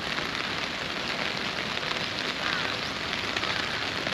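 Rain pattering steadily on a clear plastic umbrella held overhead.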